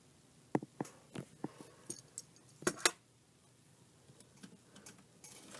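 Hard plastic toy figures clicking and knocking as they are handled and set down on a surface. A quick run of sharp clicks fills the first three seconds, followed by fainter light ticks.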